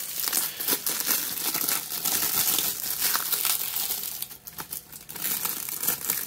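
Plastic shrink wrap crinkling and crackling as it is pulled off a Blu-ray case by hand, easing briefly about four and a half seconds in.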